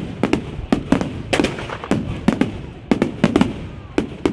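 Aerial fireworks bursting in a rapid, irregular string of sharp bangs, about three or four a second, each followed by a short rumbling echo.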